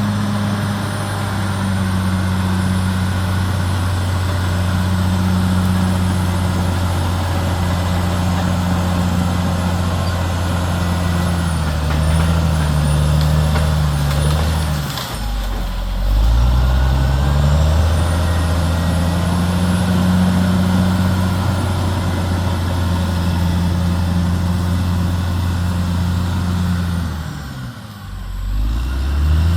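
Caterpillar D6R XL bulldozer's diesel engine running under load, a steady deep drone. About halfway and again near the end, the engine note sags briefly, then climbs back up.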